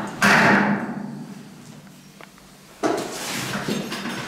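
Hand riveter setting rivets in steel drywall profiles: two sharp metallic clacks, one just after the start and one near three seconds in, each ringing briefly through the steel track.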